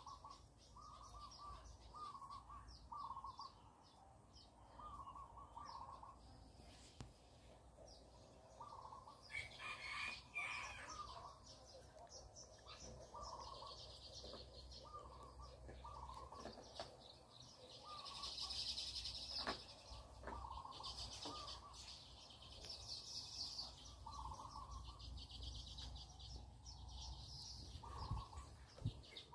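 Birds calling faintly: one bird repeats a short mid-pitched note about once a second, and higher twittering chirps come in several times.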